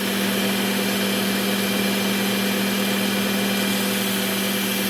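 Work Sharp Ken Onion Edition belt sharpener running at a steady speed, its motor humming under the hiss of a Trizact A30 belt as a small whittling knife blade is ground on it. It gets a little louder at the start and then holds steady.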